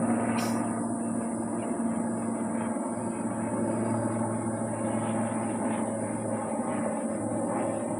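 Helicopter passing overhead: a steady engine and rotor drone.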